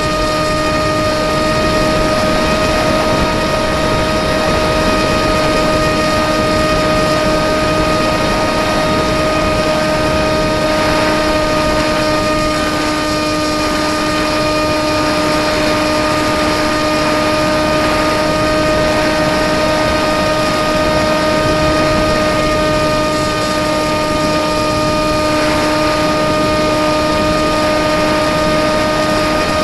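RC plane's motor and propeller heard from the onboard camera, holding a steady hum at one unchanging pitch over a constant rush of air noise in flight.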